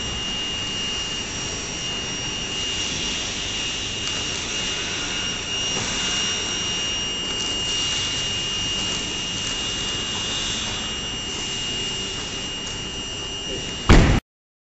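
A steady mechanical whir with a thin, high whine. Near the end a car door slams shut once, loudly.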